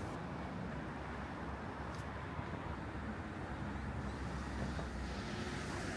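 Steady hum of city road traffic, a low, even rumble, with a faint engine tone near the end.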